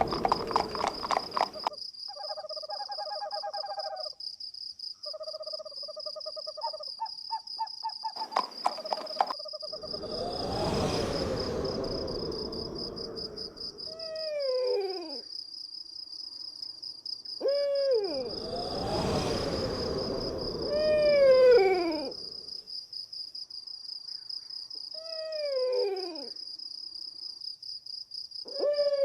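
Cartoon night-time sound effects: crickets chirping steadily throughout, with an owl hooting in falling calls several times from about halfway on, and two long whooshes of wind. Hoofbeats stop about a second in.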